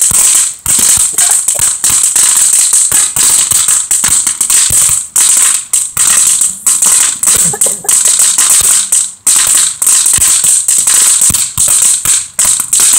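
Consumer ground firework going off: a steady high hiss under a dense, rapid crackle of sharp pops and snaps, with a few brief lulls.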